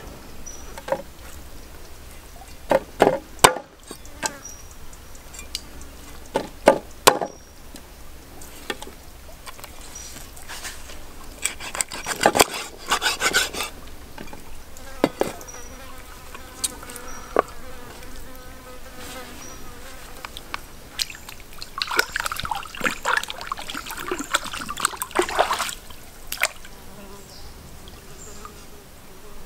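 Meat cleaver chopping raw chicken on a wooden stump chopping block: two clusters of sharp chops, about three and seven seconds in, then scattered cutting and handling noise, over a steady insect buzz.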